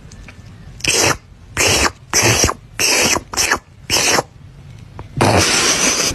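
A person making loud, wet licking noises with the mouth, imitating a cat grooming: six short licks in a quick row, then one longer lick near the end.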